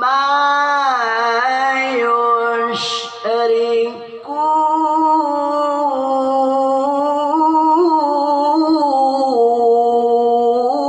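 A man chanting Qur'an recitation in melodic tajwid style, holding long drawn-out vowels with slow ornamental turns of pitch, with a brief break for breath about three seconds in.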